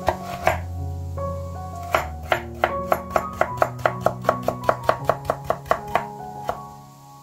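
Chef's knife chopping parsley root on a wooden cutting board. A few slow cuts give way, about two seconds in, to a quick even run of about five chops a second, stopping near the end. Background music plays underneath.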